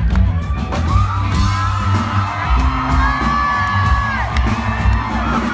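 Rock band playing live, loud and bass-heavy, heard from within the crowd, with audience members whooping over the music.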